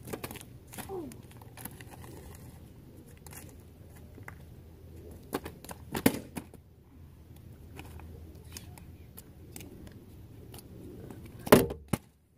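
Plastic water bottle thrown and landing on street pavement: a few sharp clacks, the loudest about six seconds in, over a steady low rumble. A louder knock close to the microphone near the end.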